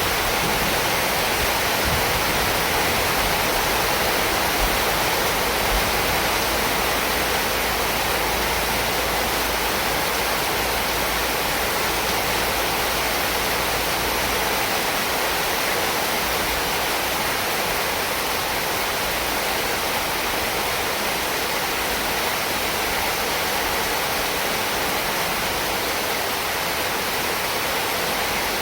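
Heavy rain falling steadily, an even hiss of rainfall.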